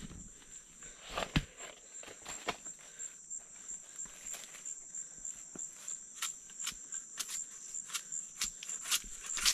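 A steady, pulsing high insect trill, with irregular sharp cracks and snaps as the fibrous sheaths of a palm stem are torn and stripped by hand to reach the swamp cabbage (palm heart).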